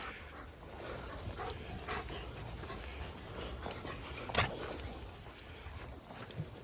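Dogs in a walking pack making quiet vocal sounds, with a few short knocks or clicks about a second, two seconds and four seconds in.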